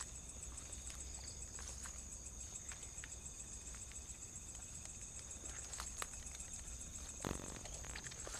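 Crickets chirring steadily at night, with scattered sharp clicks and taps and a brief louder scrape or thump near the end.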